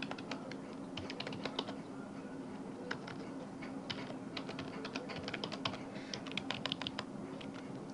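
Computer keyboard typing: quick keystrokes in irregular bursts with short pauses between them. A faint steady hum runs underneath.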